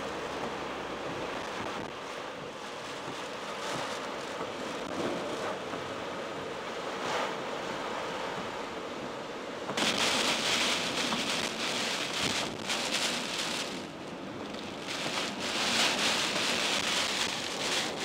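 Typhoon wind and heavy rain lashing a moving car, a dense steady rush of noise. About halfway through it turns louder and hissier as the rain hits harder, eases for a moment a few seconds later, then builds again.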